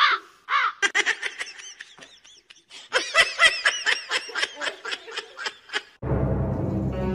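High-pitched laughter: a quick run of short rising-and-falling giggles that gets denser about three seconds in. Music starts near the end.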